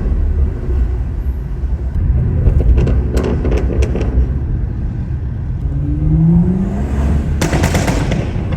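Engine and exhaust of a tuned BMW rumbling at low revs, with a quick run of sharp cracks about three seconds in. The revs climb about six seconds in, and a loud rushing burst follows near the end.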